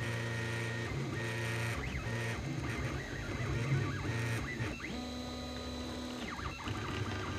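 Printrbot 3D printer's stepper motors whining in short pitched tones that change pitch every fraction of a second as the print head moves, with brief rising and falling glides between moves. From about five to six and a half seconds in, one longer steady tone holds during a longer move.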